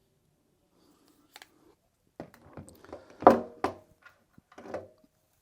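Handling noise from a pistol being moved about: a scatter of light clicks and knocks on a hard surface, the loudest about three seconds in.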